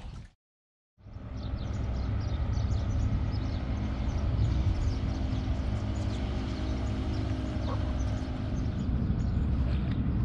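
Motorboat engine running steadily with an even drone, starting after a short gap of silence just under a second in.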